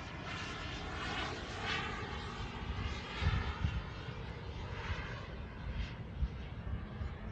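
Remote-controlled model jet fighter flying overhead, its jet engine's rushing whine swelling and fading as it makes passes. Wind buffets the microphone with low rumbles.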